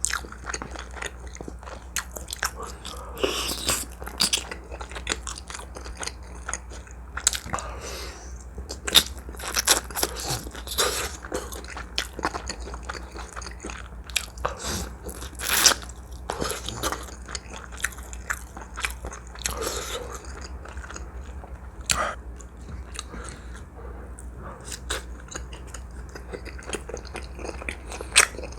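A person chewing and biting food close to the microphone: irregular wet mouth sounds and crunches with frequent sharp clicks, over a steady low hum.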